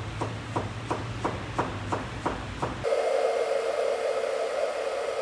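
Rhythmic knocking, about three sharp strikes a second over a low hum. About three seconds in it gives way abruptly to a steady droning whirr of a motor or blower.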